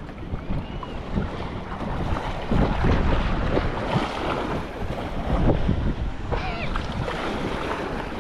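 Wind buffeting the microphone over moving, splashing water, in uneven gusts.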